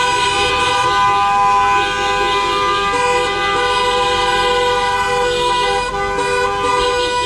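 Several car horns held down together in long, overlapping blasts at different pitches, sounding almost without a break.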